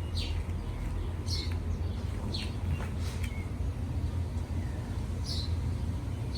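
Small birds chirping: several short, falling chirps spaced a second or more apart, over a steady low rumble.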